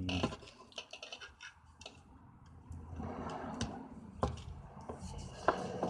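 Wire being pulled through a homemade wire stripper, its insulation scraping and rubbing against the blade, with a few sharp clicks.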